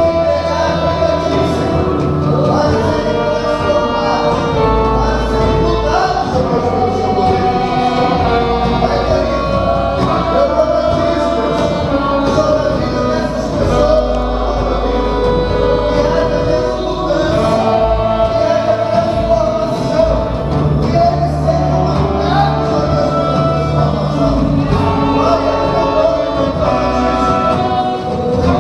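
Live gospel worship music: several singers on microphones singing over an amplified band, with sustained bass notes under the melody.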